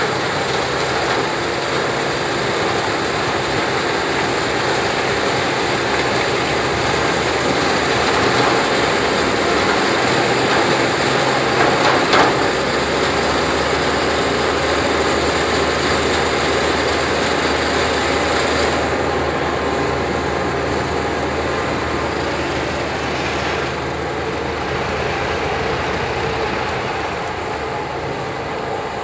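Sugarcane chopper harvester working through standing cane, its engine and cutting and chopping gear running steadily under load, with the tractor hauling the cane trailer running alongside. A single sharp crack about twelve seconds in. The noise eases a little in the last third.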